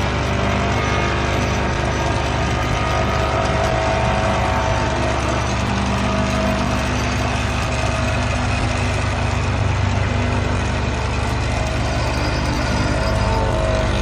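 Excavator-mounted hydraulic vibratory pile driver running steadily while driving a pile into the ground, its vibration mixed with the excavator's diesel engine working under load.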